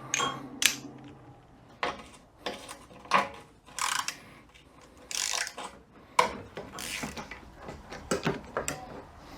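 Ratchet wrench clicking in short irregular strokes, mixed with sharp metal clinks, as the 1/2-inch bolts of a 42RE automatic transmission's oil pan are loosened.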